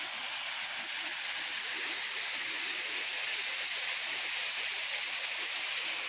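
Steady hiss and splash of water falling over a rock cascade in a garden waterfall.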